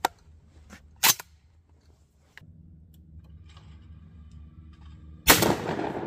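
Remington 1100 12-gauge gas-operated semi-automatic shotgun firing one shot of 8-shot birdshot about five seconds in: a single sharp blast that echoes and fades away slowly. Before it come two faint clicks and a low steady hum.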